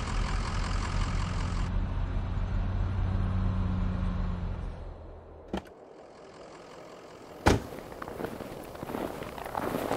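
An off-road vehicle engine idles with a steady low hum for about five seconds, then fades out. Then come a small click and a single sharp knock, the loudest sound, followed by irregular footsteps in snow.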